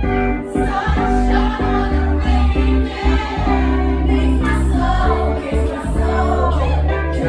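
Live band performance of a pop song: voices singing over band accompaniment with a strong bass line.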